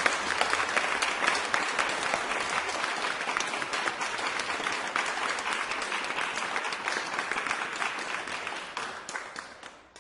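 A crowd applauding, with some shouting mixed in. The applause runs steady, then fades out over the last couple of seconds, ending in a few scattered claps.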